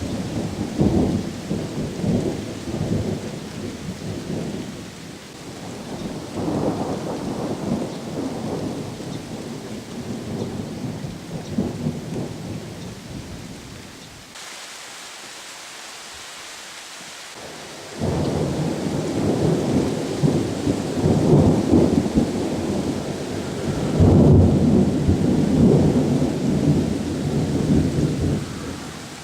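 Distant thunder rolling in long, deep peals over a steady hiss of rain. The rumbling breaks off abruptly about halfway through, leaving only the hiss for a few seconds. A louder peal then starts suddenly and swells again near the end.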